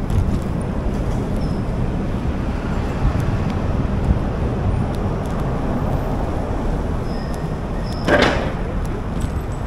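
Steady low rumble of wind buffeting the microphone on a moving bicycle, with a brief louder rush about eight seconds in.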